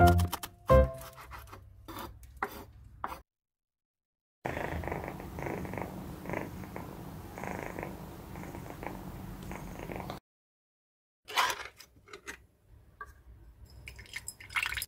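Domestic cat purring close to the microphone for about six seconds, swelling and fading with each breath. Short clicks and taps come before and after the purring.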